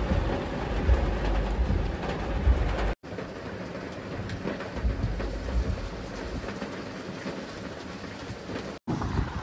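Heavy rain pouring down steadily. For the first three seconds a deep rumble runs under it; after an abrupt cut it continues as quieter, even rain with scattered drips.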